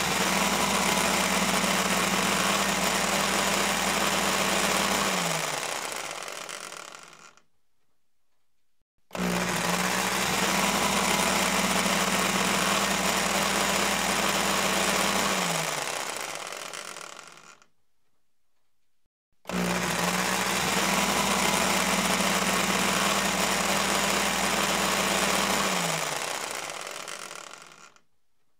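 Electric blender motor running at a steady speed in three runs of about six seconds each, with a steady hum under a whirring noise. Each time it is switched off the motor spins down over a couple of seconds, its hum falling in pitch, before a short pause.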